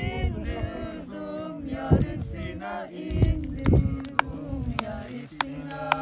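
Unaccompanied singing: voices carrying a slow, wavering melody with long held notes, with a few sharp clicks or taps over it.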